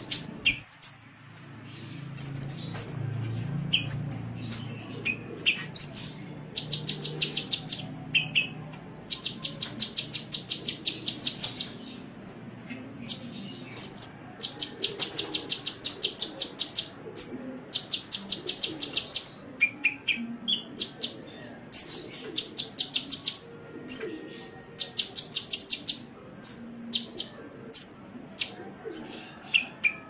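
Sunbird ('kolibri') singing: high, rapid trills of quickly repeated notes lasting one to three seconds, alternating with sharp single chirps.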